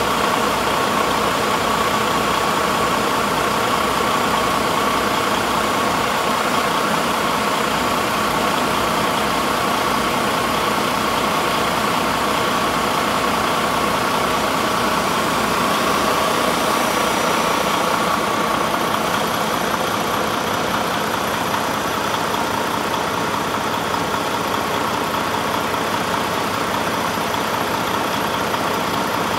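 2013 Volvo D13 inline-six diesel engine idling steadily.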